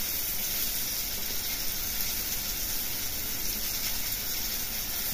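Vegetables frying in oil in a wok on a gas stove, a steady sizzle.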